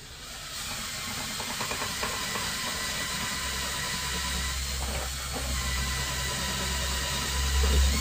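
Cordless driver running steadily under load, sinking a 2-inch deck screw up through the refrigerator's mounting tab into a wooden 2x4 brace. A deeper hum comes in about halfway through.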